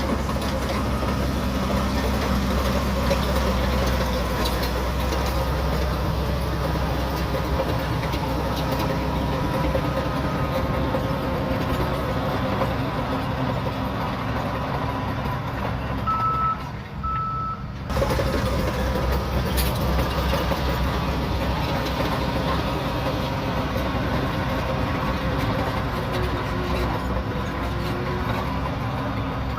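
Shantui DH17C3 bulldozer's diesel engine running steadily under working load. A reversing alarm beeps twice about two-thirds of the way through, and the sound breaks off for a moment just after.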